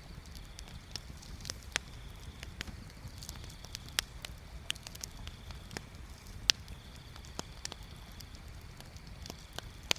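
Bonfire crackling: irregular sharp pops and snaps, the loudest about six and a half seconds in, over a low steady rumble.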